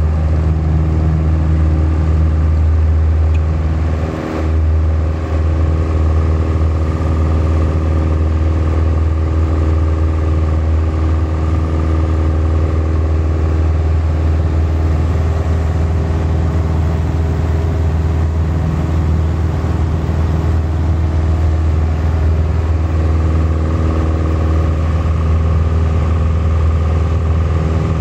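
Single-engine light aircraft's piston engine and propeller running at takeoff power as it rolls down the runway and climbs away, heard from inside the cabin as a loud steady drone. The sound briefly dips about four seconds in.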